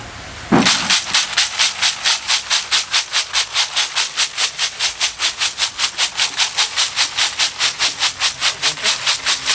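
Cooked sururu mussel shells rattling in a plastic crate shaken rapidly back and forth, about five shakes a second, starting about half a second in. The shaking knocks the meat out of the heat-opened shells.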